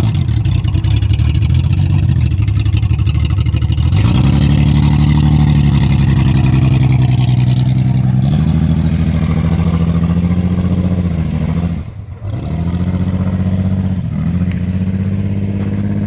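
Car engine running and revving under way. Its pitch climbs in steps about 4 and 8 seconds in, drops sharply about 12 seconds in, then rises again.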